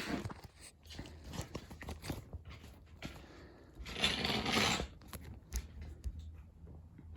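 Handling noises from the wrecked ceiling fan and its parts: scattered clicks and knocks, with a louder scraping rustle about four seconds in.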